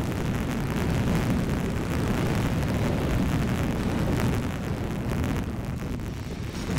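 Car driving along a paved road, heard as a steady low rumble of wind buffeting and road noise on a GoPro action camera's microphone.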